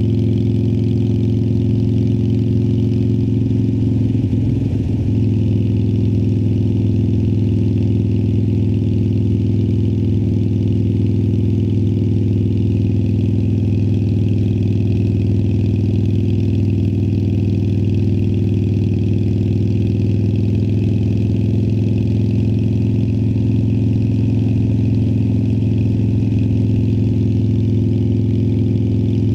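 2018 Harley-Davidson Sportster Iron 1200's air-cooled V-twin idling through Vance & Hines Twin Slash slip-on mufflers, holding one steady pitch with no revving.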